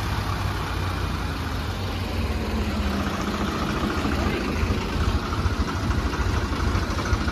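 Diesel tractor engine running at low revs with an even, low pulsing beat, working a loaded trolley through deep mud.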